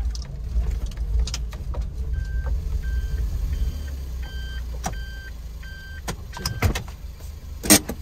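A kei van's engine running at low speed, heard from inside the cabin. A short high electronic beep repeats about every 0.7 s for several seconds while the van manoeuvres into a parking space, and a sharp click comes near the end.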